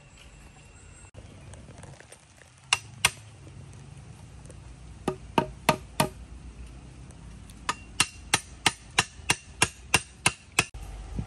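Repeated sharp tool strikes, as in hammering or chopping during building work. There are two blows, then four, then a quick run of about nine at roughly three a second.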